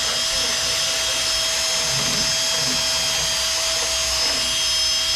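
Power-driven deburring tool spinning steadily at a constant speed, with a steady high whine over a hiss, as it grinds corrosion off the wheel hub mounting area.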